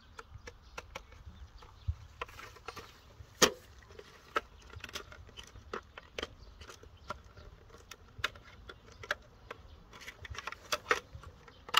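Scattered plastic clicks and rattles from a Parkside forestry safety helmet being handled: its ear-defender arms and visor bracket being moved and snapped into position, with one sharper click about three and a half seconds in.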